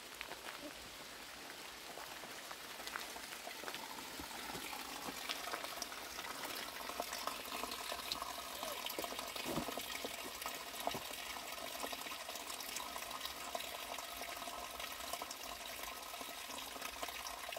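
Thin stream of spring water falling from a pipe spout into a hole in a wooden board: steady trickling and splashing, growing a little louder over the first few seconds.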